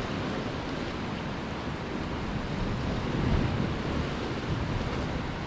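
Sea surf washing against rocks in a steady rush, with wind buffeting the microphone; the surge swells slightly louder about three seconds in.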